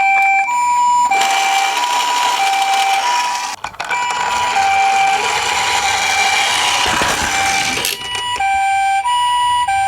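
Toy ambulance's electronic two-tone siren, a high note and a low note alternating about every half second in the Japanese ambulance 'pii-poo' pattern. A loud hissing noise runs under it from about a second in until about eight seconds in.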